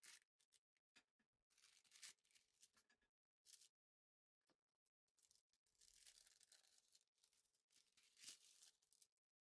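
Near silence, with faint rustling noises: a couple of short ones in the first few seconds, then a longer stretch from about halfway in.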